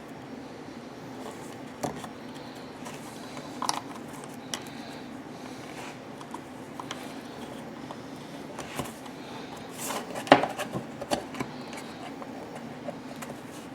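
Small clicks and taps of hands handling a small engine's PCV valve and a plastic zip tie, with a quick cluster of clicks about ten seconds in, over a steady low hum.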